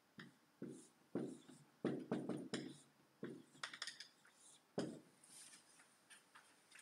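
Dry-erase marker drawing lines on a whiteboard: a series of short, faint strokes and taps, which stop about five seconds in.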